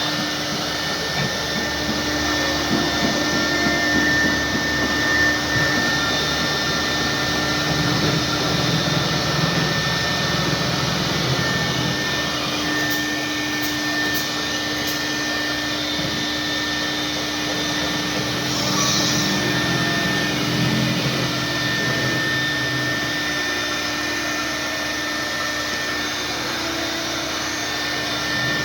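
Steady whir of a running electric motor, with a constant high whine and a lower hum over a noisy rush.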